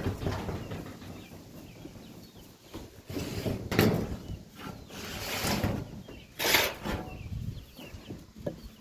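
Wind buffeting the microphone with a low rumble, broken by three short, loud knocks or scrapes of the wooden hive's top cover being set back in place.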